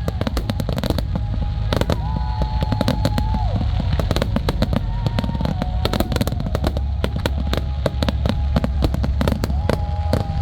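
Fireworks finale barrage: dense, rapid bangs and crackles over a continuous low rumble.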